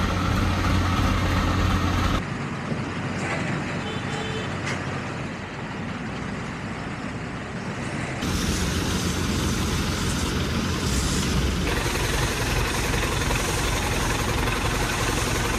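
Heavy diesel engines of a mobile crane and trucks running steadily, with a strong low hum. The sound drops abruptly about two seconds in and comes back louder about eight seconds in.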